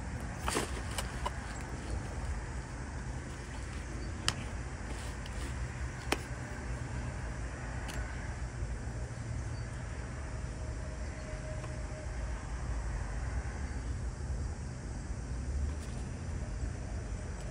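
Steady low outdoor rumble, with a few sharp clicks and taps as a cardboard gift box and its contents are handled.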